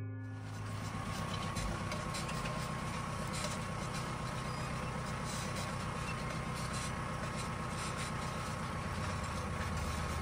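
Tractor engine running steadily under a constant high whine.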